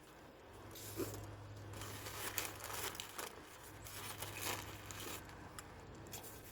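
Takeout food packaging being handled: irregular crinkling and rustling of plastic and paper wrappings and bags.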